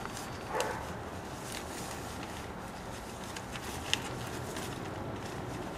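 Plastic sheeting being handled, with a few light crinkles and clicks over a steady outdoor hiss; the sharpest click comes about four seconds in. A short call, like a distant animal, sounds about half a second in.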